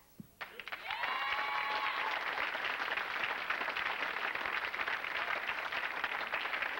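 Studio audience applauding, dense steady clapping that starts about half a second in. A single held, pitched call, like a cheer, rises over the clapping about a second in and lasts about a second.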